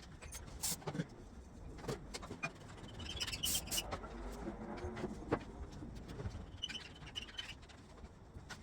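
Scattered light clicks and knocks of tools and parts being handled during workshop work on the car, with a faint pitched sound about four to five seconds in.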